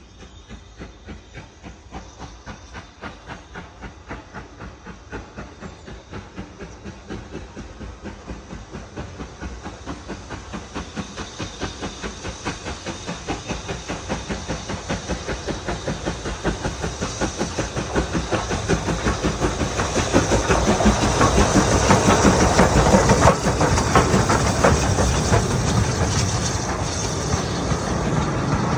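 BR Standard Class 9F 2-10-0 steam locomotive accelerating, its exhaust beats in an even chuffing rhythm that grows steadily louder and quicker, with steam hiss. Near the end the beats blur into a dense, continuous rush of exhaust and rail noise.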